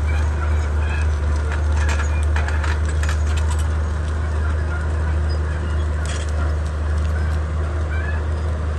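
Komatsu D31P bulldozer's diesel engine running with a steady low drone, with a cluster of sharp clicks and cracks around two to three and a half seconds in and another about six seconds in.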